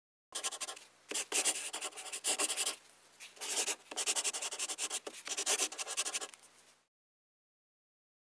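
Pen nib scratching across paper in several handwriting strokes with brief pauses, a writing sound effect that accompanies a script logo being drawn.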